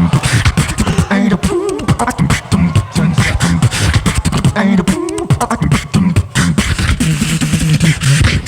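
A beatbox tag team performing live: rapid vocal kicks, snares and hi-hat clicks over a pitched, hummed bass line, with bits of vocal melody on top.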